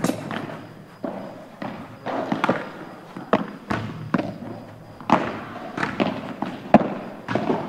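Padel balls being struck with rackets and bouncing: a quick irregular run of sharp knocks, about two a second, each ringing briefly.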